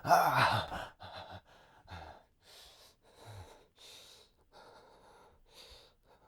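A man gasps, then breathes in short, ragged breaths that grow fainter and stop near the end: pained, laboured breathing.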